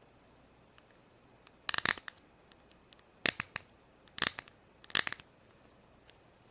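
Small plastic toys being handled and set down on a hard surface: four short bursts of quick clicking and clattering, about a second apart.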